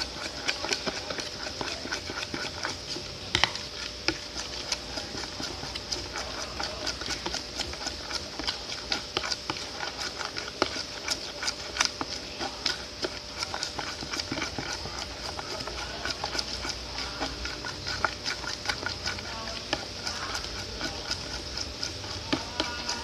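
Glue and hand-soap slime mixture being stirred in a container with a stirrer, a quick irregular run of clicks and scrapes against the container's sides and bottom.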